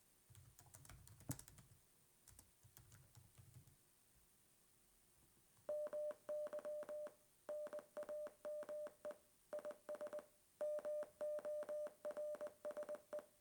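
Morse code beeps from a phone app: one steady electronic tone keyed into short and long pulses, dots and dashes spelling "MY NAME IS MORSE" in four word groups with short gaps between them. The beeping begins about six seconds in, after a faint click.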